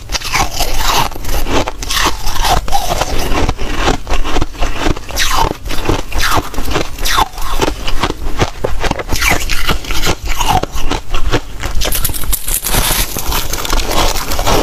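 Soft, snow-like freezer frost being bitten and chewed close to the microphone: a continuous run of crisp crackling crunches, with a brighter, hissier stretch about twelve seconds in.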